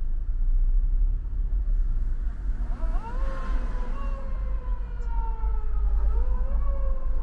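Police patrol car siren wailing, heard from inside a car over the low rumble of the car's cabin. The wail starts about three seconds in, rises quickly, then holds and slowly sinks, and it rises again about six seconds in.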